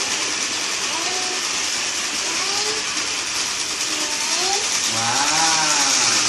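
A toy car's motor and gears whirring steadily, with brief voices over it and a child's voice about five seconds in.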